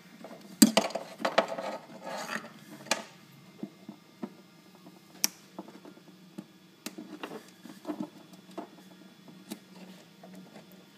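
Hands working clips and cables: a quick run of clicks and rattles in the first few seconds, then scattered single clicks and taps.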